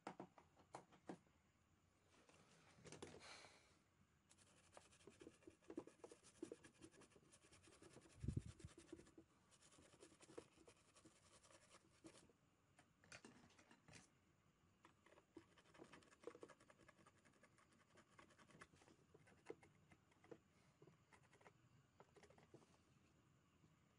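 Faint, irregular scratching and small clicks of a fine pick scraping corrosion residue off an ECU circuit board, with one slightly louder knock about eight seconds in.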